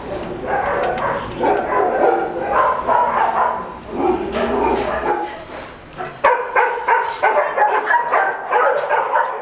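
Several puppies yipping and whining, with many short, high calls one after another. About six seconds in it changes to a quicker run of sharp yips.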